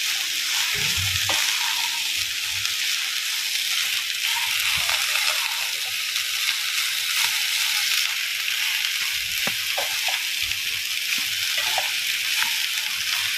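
Chopped okra sizzling in hot oil in a non-stick pan, a steady hiss, while a wooden spatula stirs and scrapes through it now and then.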